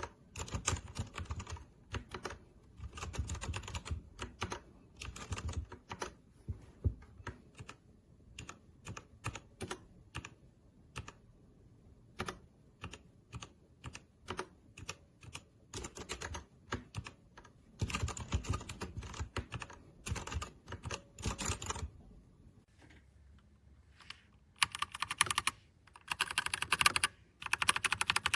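Typing on a Royal Kludge RK61 60% mechanical keyboard: quick runs of key clacks in irregular bursts, with a short pause about two-thirds through and a louder, faster flurry near the end.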